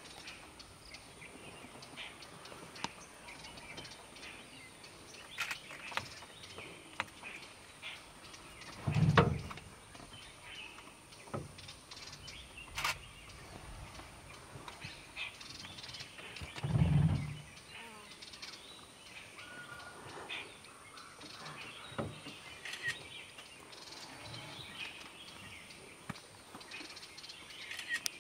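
Quiet outdoor ambience with faint, scattered bird chirps, broken twice by a short low thud or rumble, about nine and about seventeen seconds in.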